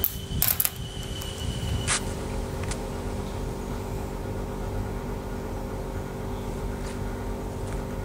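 Footsteps and handheld-camera handling noise while walking a forest footpath: an irregular low rumble, with a few light clicks in the first two seconds. A faint steady hum runs under it.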